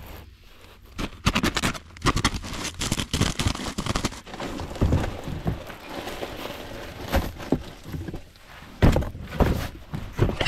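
Old insulated flexible ductwork being yanked and dragged out through a crawlspace hatch: rustling and scraping of the duct jacket with many irregular knocks and thunks.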